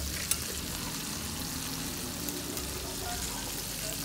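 Steady sizzling hiss of curry goat boiling in an aluminium pot and chicken in a frying pan over an open wood fire. A metal ladle clinks sharply against the pot about a third of a second in and then stirs the curry.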